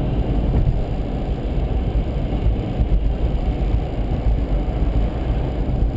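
Steady low rumble of a car driving, heard from inside the cabin: tyre and road noise with the engine running underneath.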